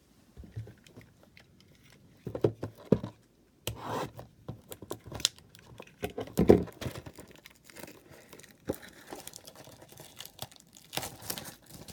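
Trading-card packets and packaging being handled: empty wrappers crinkling and being torn, in irregular bursts with a few sharp knocks and clicks, the loudest about six and a half seconds in.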